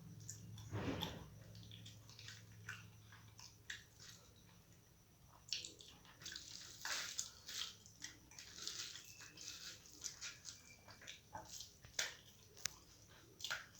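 Close-up eating sounds of rice with masoor dal and boiled potato being chewed. Wet mouth clicks and smacks come at irregular moments.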